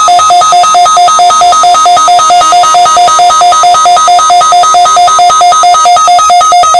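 Electronic emergency-alert attention tone for a weather radio alarm test, loud: a low and a high tone pulsing together about four times a second.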